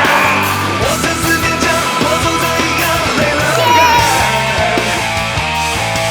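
Loud rock music from a full band, with regular drum strokes under pitched instrument lines.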